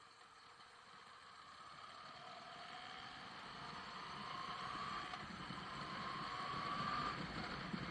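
Moto Guzzi V85TT's air-cooled transverse V-twin pulling as the bike accelerates, with wind noise, getting steadily louder. A whine climbs in pitch a few times.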